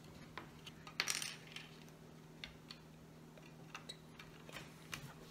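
Small plastic Lego bricks clicking and clattering against each other and the wooden tabletop as pieces are handled and pressed together, in scattered light clicks with one louder rattle about a second in.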